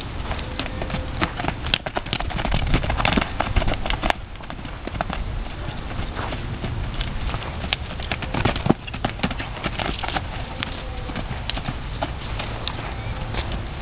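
A young filly's hoofbeats on sandy dirt as she trots and lopes loose in a pen: a run of irregular soft thuds.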